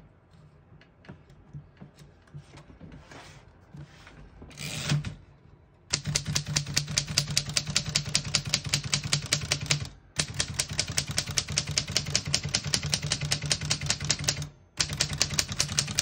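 1933 Corona 4-bank manual portable typewriter being typed on: after a few faint handling clicks, a fast, even run of typebar strikes starts about six seconds in, broken by two short pauses.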